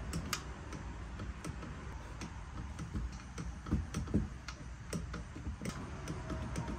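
Ratchet wrench clicking in single, irregularly spaced ticks while the connecting rod bolts are tightened through the open crankcase, with a few duller knocks around the middle.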